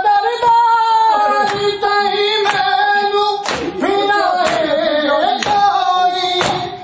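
A male voice sings a noha lament, a held, wavering melody. Under it, a group of men beat their chests in unison, with sharp slaps about once a second.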